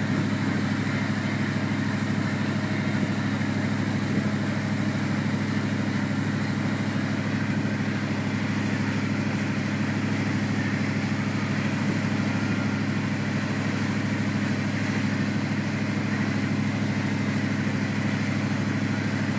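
Tigé wakesurf boat's inboard engine running steadily under way at surfing speed, a constant low drone, with the hiss of the churning wake above it.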